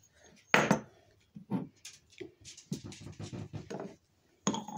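A sharp knock of a small cast-iron cauldron lid on a wooden tabletop about half a second in, followed by faint scattered taps and rustles of objects being handled.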